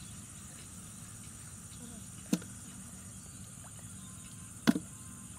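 Two sharp knocks on a plastic bucket, about two and a half seconds apart, the second louder, as it is handled on its side to get at a catfish. A steady high hiss runs underneath.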